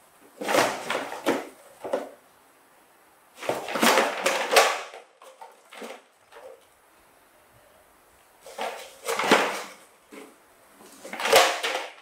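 Plastic toy dump truck clattering and knocking on a wooden floor as it is tipped over, set back on its wheels and climbed in and out of. The clatter comes in four short bursts with quiet in between.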